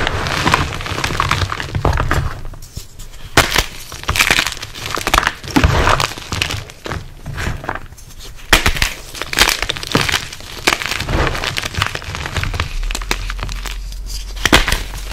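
WOD Nation gym chalk cubes crushed by hand: irregular sharp cracks as the blocks break apart, between gritty crunching of the crumbled chalk being squeezed.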